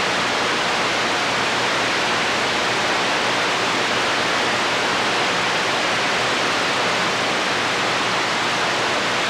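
CB radio receiver hissing with steady static between skip transmissions. The channel is open, with no station on it.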